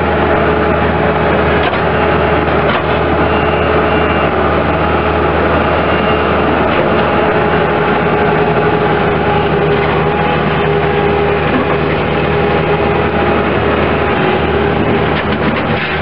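Bobcat S185 skid steer loader's Kubota four-cylinder diesel engine running steadily.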